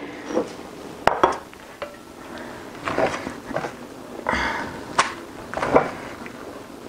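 A spoon scooping thick corn fufu out of an enamelled cast-iron pot, with a handful of separate knocks and clicks against the pot.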